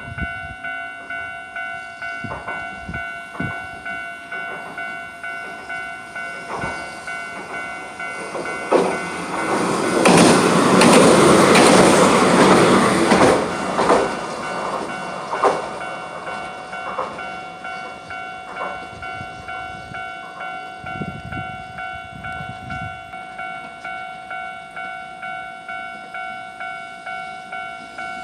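Level-crossing warning bell ringing at a steady, even beat while a Hiroden train passes over the crossing. The train's rumble builds from about eight seconds in and is loudest a few seconds later, with its wheels clacking over the rail joints as it goes by and then fades.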